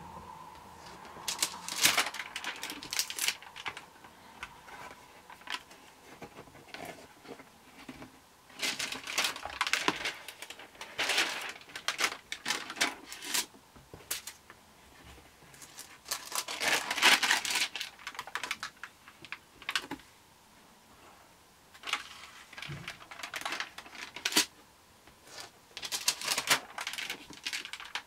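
Pages of a Lighthouse 64-page stamp stockbook turned by hand: rustling and crinkling of the stiff pages and their translucent interleaving sheets, with small clicks and taps, in irregular bursts separated by short quiet gaps.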